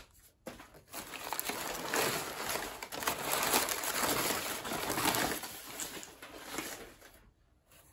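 Crumpled brown kraft packing paper rustling and crinkling as it is handled and pulled out of a cardboard box, dying away shortly before the end.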